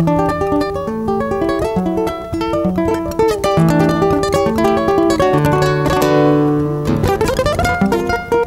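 Solo nylon-string acoustic guitar (violão) played fingerstyle: quick single-note melodic runs over bass notes, a strummed chord about six seconds in, then a fast rising run.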